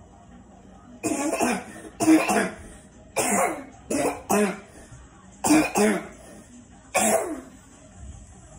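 A person coughing repeatedly: about eight short, harsh coughs, some in quick pairs, with short gaps between them.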